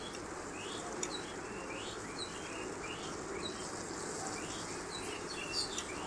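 Mustard paste frying softly in oil in an aluminium kadai while a metal spatula stirs it, with a string of short high chirps about twice a second and a couple of sharper ticks near the end.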